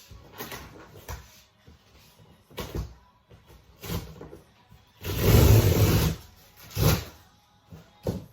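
Cardboard mattress box and its wrapping being handled and opened: a series of short scraping, rustling noises, with a louder, longer one about five seconds in and another shortly after.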